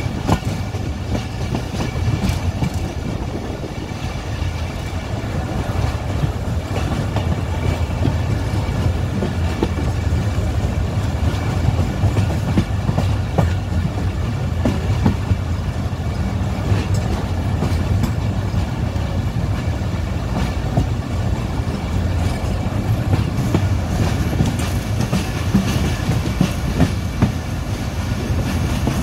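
Passenger train running at speed, heard from beside its coaches: a steady rumble of the running gear with wheels clacking irregularly over rail joints.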